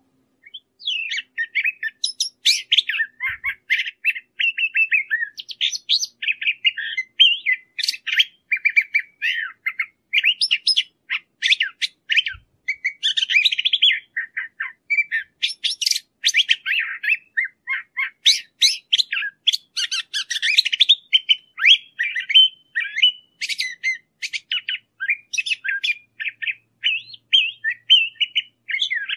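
Curve-billed thrasher singing: a long, nearly unbroken song of quick, varied notes and phrases, beginning just after the start.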